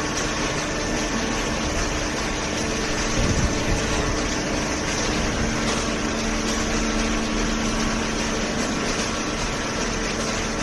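Vertical hydraulic baler's power unit, an electric motor driving the hydraulic pump, running steadily with a constant hum and whine over a hiss. A lower hum tone joins in about halfway through and holds for a few seconds.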